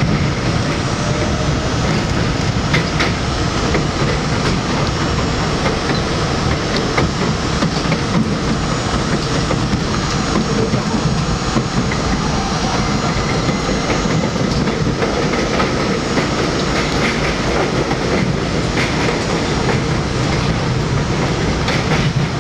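New York City Subway J train running along elevated steel track, heard from inside the front car: a steady rumble of wheels on rails with the clickety-clack of rail joints and small scattered clicks.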